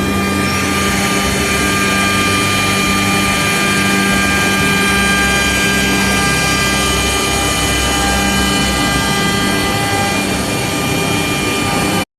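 Three-spindle CNC router running, its spindles giving a steady whine of several high tones over a noisy hum, with one tone rising in the first second. The sound cuts off abruptly near the end.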